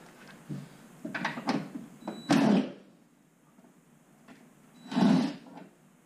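Scraping and knocking from the sheet-metal casing of a PTAC unit being handled. There are three short sliding scrapes, the loudest about two and a half seconds in.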